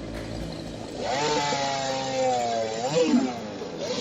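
Chainsaw at high revs, its pitch sagging slowly as it works, then dipping and shooting back up about three seconds in before cutting off briefly. A low steady engine hum fills the first second before the saw comes in.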